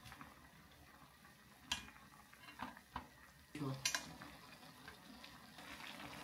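Ramen broth bubbling softly in a metal pot on a portable gas burner, with a few sharp clicks of chopsticks knocking against the pot as the noodles are stirred in, the loudest cluster about four seconds in.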